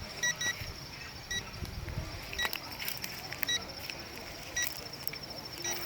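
Short electronic beeps, about seven of them and some in quick pairs, over a steady high-pitched whine, with scattered clicks.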